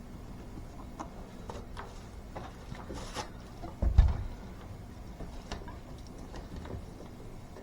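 Scattered light clicks and knocks of handling and work noise, with one low thump about four seconds in.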